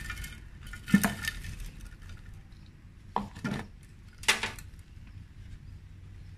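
A plastic flowerpot knocked and handled by gloved hands to free a root ball: a few sharp knocks, the loudest about a second in, with light rustling of loose potting soil.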